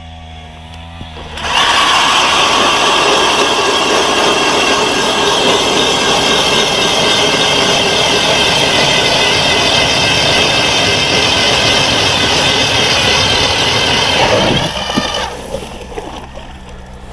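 Power ice auger drilling a hole through lake ice. The motor starts about a second and a half in, runs steadily under load, and winds down a couple of seconds before the end.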